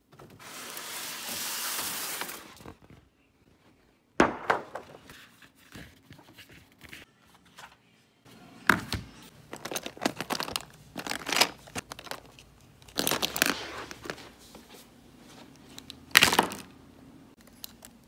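A sheet of paper rustling as it is handled, then a series of knocks and rattles as paint tubes and brushes are rummaged in a clear plastic box.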